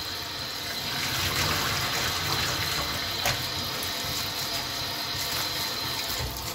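Kitchen tap running cold water onto cooked pasta in a plastic colander in a stainless steel sink, a steady splashing stream. The boiled pasta is being rinsed under cold water so it won't stick together.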